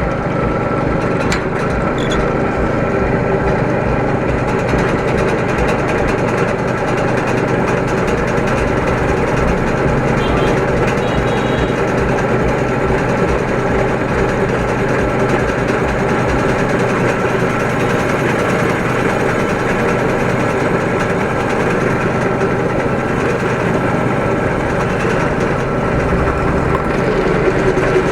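Machinery running steadily with a constant hum.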